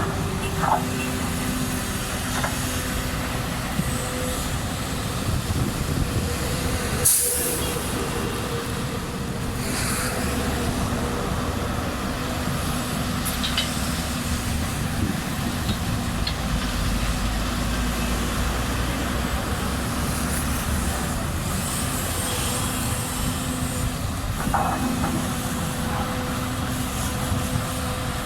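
Excavator's diesel engine running steadily while working its hydraulics, with tones that rise and fall as it digs and loads. A short burst of hissing air comes about seven seconds in.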